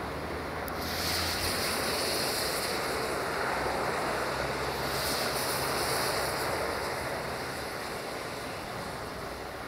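Distant LDE2100 (060-DA) diesel-electric locomotive with its Sulzer engine, a low steady drone under a continuous rushing noise. A high hiss joins in about a second in.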